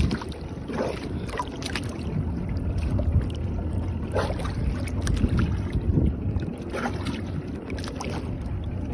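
Sea water sloshing and splashing against the side of a small boat, with wind rumbling on the microphone. A few short splashes stand out.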